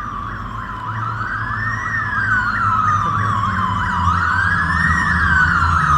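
Emergency vehicle sirens sounding two patterns at once: a slow wail rising and falling every few seconds and a fast yelp of about four sweeps a second, over a low vehicle rumble. They grow louder as they approach.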